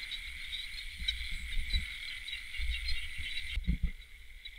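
Steady high chirring of crickets and other night insects, with low rumbling thuds of footsteps through grass and handling noise as someone walks along a bank. There is a short louder thud a little before the end.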